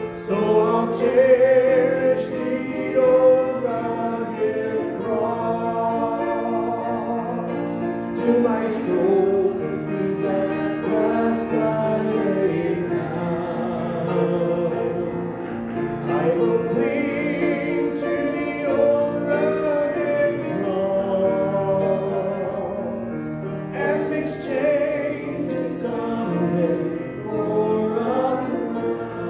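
Church congregation singing a hymn together, many voices holding long notes.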